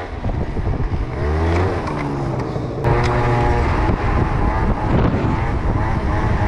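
Moped engine revving up and easing off as it is ridden, its pitch rising and falling several times.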